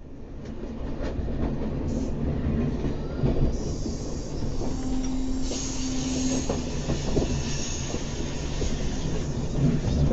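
Steady low rumble fading in at the start, with scattered clicks and knocks throughout. About halfway in, a brief steady hum-like tone sounds and a high hiss swells, then eases off.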